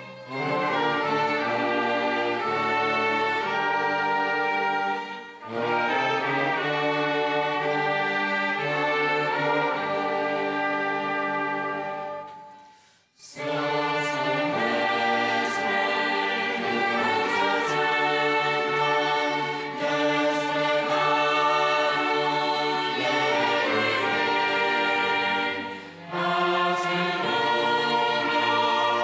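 A string orchestra with flutes accompanying a choir singing a hymn in Romanian. The music breaks off briefly a few seconds in, fades almost to silence a little before the middle, then starts up again.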